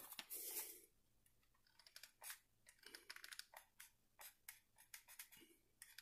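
Faint clicks and handling noises as a small hot glue gun is worked against a plastic dragon figure: a soft rustle in the first second, then scattered light ticks.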